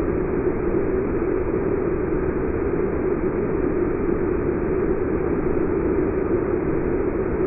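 Waterfall rushing steadily: an even, unbroken wash of falling water, fullest in the low middle range.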